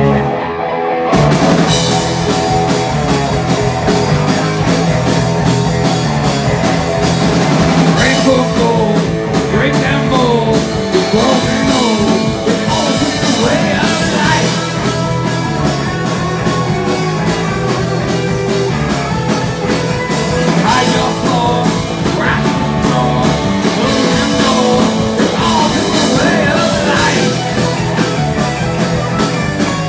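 Live rock band playing loudly: electric guitars, bass and a drum kit with a male lead singer.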